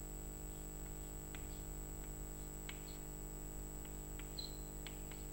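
Chalk tapping and scratching on a blackboard while writing: scattered faint clicks, a few a second, over a steady background hum.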